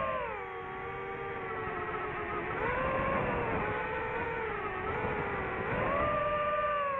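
DJI FPV drone's motors and propellers whining in flight. The pitch drops at the start, then climbs again twice, about two and a half seconds in and near the end.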